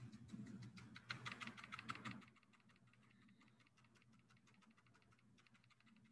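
Paintbrush dabbing paint onto paper in rapid light taps, louder for about the first two seconds and fainter after.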